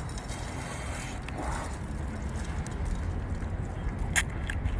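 Biting into a whole cooked octopus coated in chili powder: a sharp wet click about four seconds in as the teeth sink into the octopus head, followed by a few smaller clicks, over a steady low background rumble.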